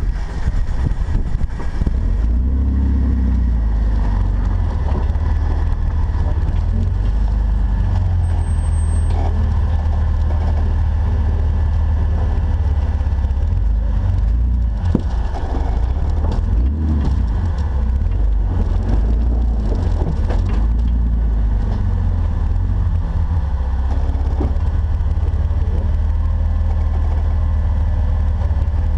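Jeep's engine running steadily at low revs, a deep rumble that rises and falls a little, with a few knocks.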